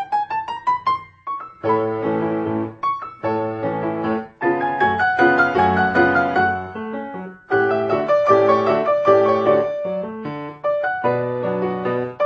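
Solo piano playing: a quick rising run opens, followed by phrases of full chords, each phrase broken off by a brief pause about every three seconds.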